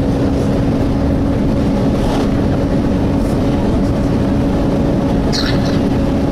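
Volvo B7TL bus engine cooling fan wailing with a steady, unchanging drone over the engine and road rumble, heard from inside the bus. The fan is hoovering whether or not the engine is hot, a fault of its random fan wailing.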